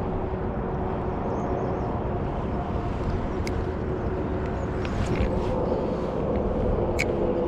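Rushing water of a creek running high and fast after heavy rain, a steady full noise, with two sharp clicks about three and a half and seven seconds in.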